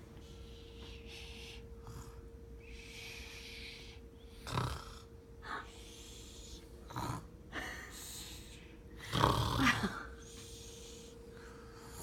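Snoring in deep sleep: soft, airy breathing with louder snores about four and a half, seven and nine seconds in, the last one longest and loudest.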